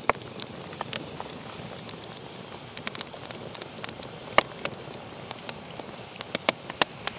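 Crackling fire sound effect: a steady hiss with scattered, irregular sharp pops.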